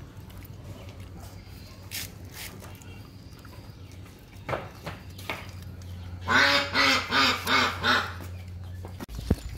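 An animal calling five times in quick succession, about two-thirds of the way in, over a steady low hum that stops shortly before the end.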